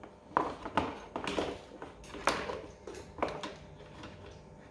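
Light knocks and clicks of motorcycle parts being handled and fitted together: about five irregular strikes in the first three and a half seconds, then quieter.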